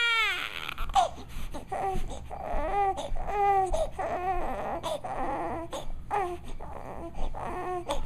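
Young baby crying: a loud wail that breaks off at the start, then a string of short, fretful cries and whimpers, one every half second to a second, which the mother takes for hunger.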